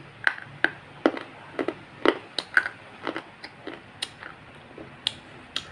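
Close-up eating sounds of a person chewing a mouthful taken from a spoon: a dozen or so sharp, irregular mouth smacks and clicks.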